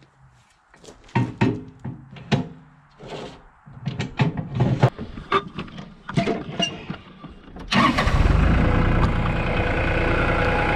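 A series of irregular knocks and rattles, then the sawmill's engine starts suddenly about three-quarters of the way in and runs steadily.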